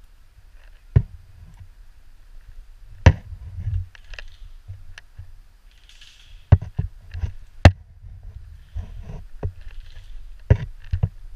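Airsoft gun fired in single shots: a dozen or so sharp cracks at irregular intervals, a few much louder than the rest. Rustling and bumping of movement through brush runs between the shots.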